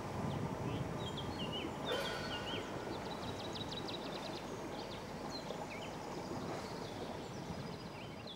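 Small birds singing, with short chirps and a quick trill, over a steady low rumble that grows quieter near the end.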